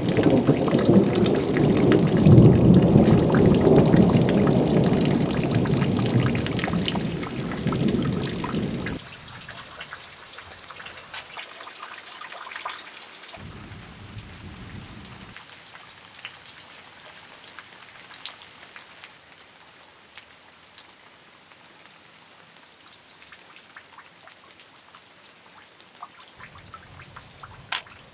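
Thunder rumbling loudly over falling rain, stopping suddenly about nine seconds in. After that, steady rain with scattered drips, a short low rumble of thunder about halfway through and a sharp click near the end.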